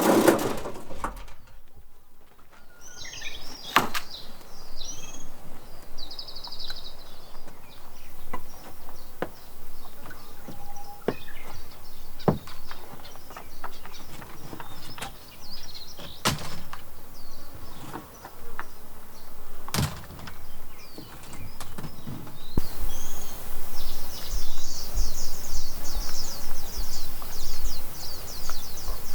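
Scattered sharp knocks and clatter over a quiet background, with short high chirping calls. A dense run of rapid chirps fills the last several seconds.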